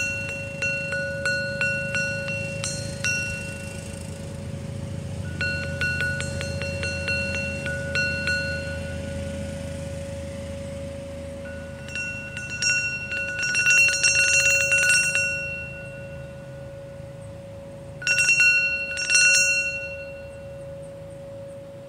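A hanging tuned metal chime tube struck with quick light taps of a wooden mallet handle, several a second, in four runs. The loudest run comes a little past halfway and a short one near the end. Each run brings up bright high ringing overtones over the tube's steady lower tone, which rings on throughout.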